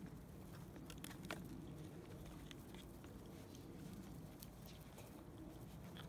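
Faint scattered clicks and small knocks of Labrador puppies eating from a cardboard divided feeding tray, with muzzles and paws bumping the cardboard.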